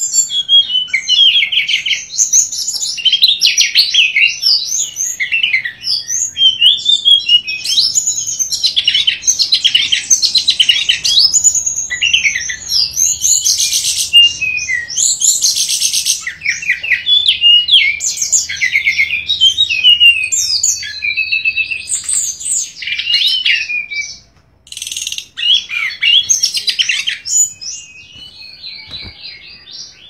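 Caged songbird singing a long, rapid, varied song of quick whistles, trills and chirps, with a short break near the end.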